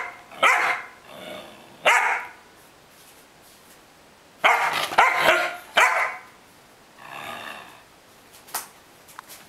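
Black-and-tan puppy play-barking from a play bow: a string of short, sharp barks with pauses between, several coming close together about halfway through.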